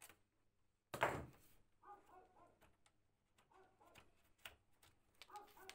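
Small screw squeaking in short chirps and clicking as it is worked loose from a carpet sweeper's plastic end cap, with a brief loud knock about a second in.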